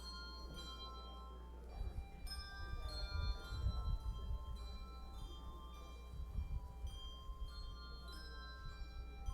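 Music played on tuned bells: struck notes ringing on and overlapping in a slow melody, with irregular low thuds underneath from about two seconds in.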